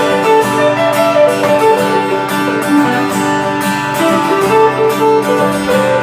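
Guitar playing an instrumental passage of a song, picked and strummed notes with no singing.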